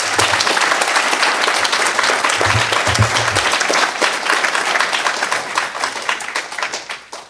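Audience applauding, the clapping thinning out and dying away near the end.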